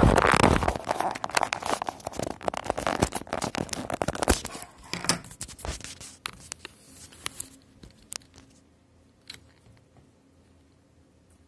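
Handling noise from a smartphone and its plugged-in lavalier microphone being moved and adjusted: dense rubbing, scraping and clicking. It is loudest in the first second and thins to a few faint clicks from about two-thirds of the way in.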